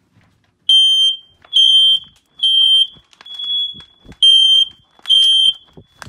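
Household smoke detector's piezo horn sounding its alarm in response to canned test smoke: six loud, high-pitched beeps about one a second, the fourth fainter. The detector is alarming on real smoke, so it passes its functional test.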